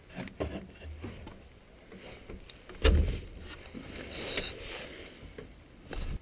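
Wooden bar latch on a plank door being worked and the door pulled open: a few light wooden knocks, one loud wooden thump about three seconds in, then scraping and handling noise.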